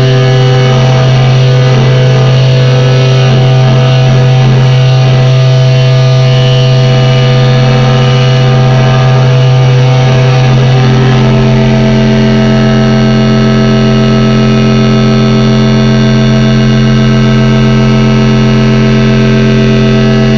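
Drone-metal music: loud, dense sustained tones of heavily distorted guitar over a constant low drone, with no beat. About halfway through, the noisy texture settles and a strong higher drone note takes hold.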